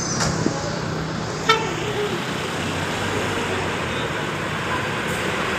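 Bus engine running amid steady traffic noise, with one short horn toot about a second and a half in.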